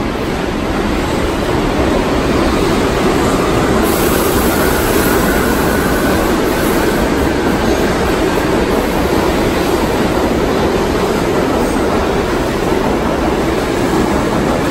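New York City subway train running on the track: a loud, steady rumble of wheels and running gear.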